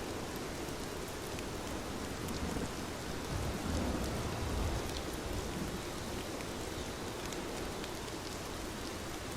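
Heavy rain falling steadily, with sharp ticks of individual drops, and a low rumble of thunder swelling and fading from about two and a half to five seconds in.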